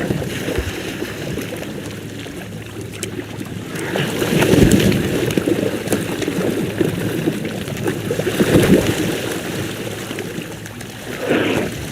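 Great white pelicans giving low, rough grunting calls, three of them about a second long each, about four, eight and eleven seconds in, over a steady watery background.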